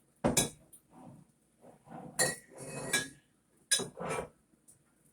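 Glass bottles being handled, clinking and knocking against each other: three sharp knocks with smaller rattles between them, the middle knock ringing briefly.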